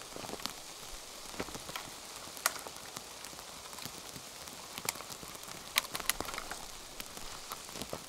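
Precipitation pattering on a surface: a steady hiss with irregular sharp ticks of drops or ice grains striking, a few of them louder.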